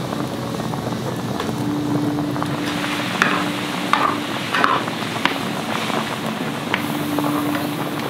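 Spicy braised chicken stew boiling hard in a wide cast-iron pot-lid pan over a high oak-wood fire: a steady rush of bubbling and flame, with a low hum throughout. A few sharp clicks come around the middle.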